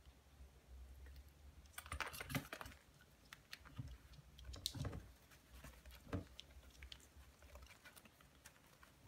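Faint clicking and scratching of Coton de Tulear dogs' claws on the pen floor and panels as they scramble about, in clusters about two seconds in and again around five and six seconds.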